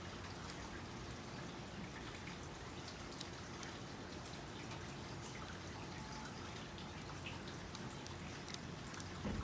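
Faint, scattered small clicks and crackles of basket-weaving material being handled and worked, over a steady background hiss, with a soft thump near the end.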